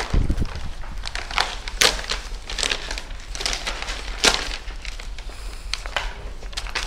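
A sealed evidence bag being opened: irregular crinkling and rustling crackles of the bag's material as it is handled.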